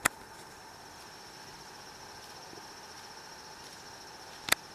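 Steady high-pitched insect chorus, with two sharp clicks, one at the very start and one near the end.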